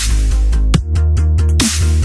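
Electronic background music with a heavy, steady bass line and sharp drum hits about every second.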